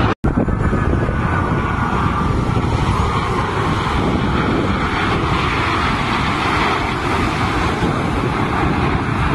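Loud, steady jet noise from fighter jets passing in formation, with a faint falling whine in the first few seconds. The sound cuts out for an instant just after the start.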